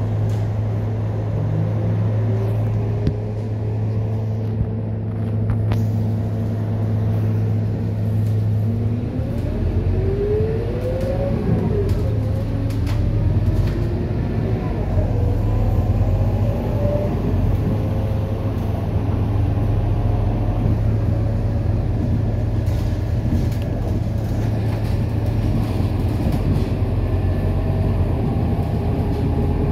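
Scania K230UB bus's 9-litre diesel engine and drivetrain heard from inside the cabin. It runs with a steady low hum, then about nine seconds in the note changes and rising whines come in as the bus accelerates.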